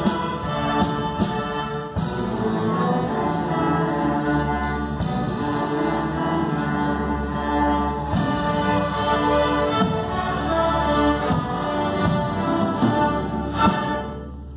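Student string orchestra playing the closing bars of a piece: many bowed violins in sustained, accented chords over a long low bass note, ending on a last loud accented chord near the end.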